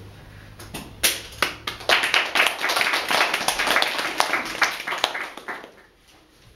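Small audience applauding: a few scattered claps about a second in grow into steady clapping that dies away near the end.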